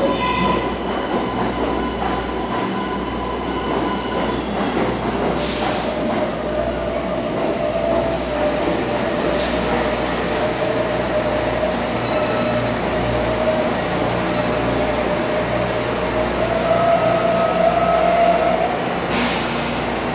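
An R142A subway train runs into the station along the platform and brakes to a stop, a steady rumble under a long, steady squeal that rises slightly just before it halts. There are two short air hisses, one about five seconds in and one just before it stops.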